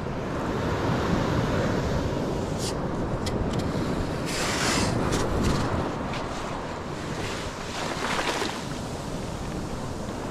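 Surf washing up the sand and wind buffeting the microphone, with a few sharp clicks and a scrape of a perforated metal sand scoop digging into wet sand around the middle.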